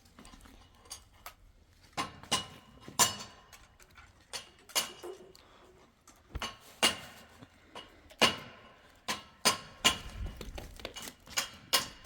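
Irregular sharp clicks and clinks, some with a brief ringing tone, like hard objects knocking together.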